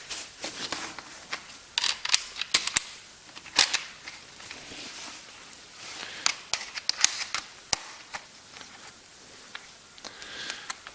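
Irregular sharp clicks and taps of small metal hardware being handled, as nuts are fitted onto the axle of an inline skate wheel.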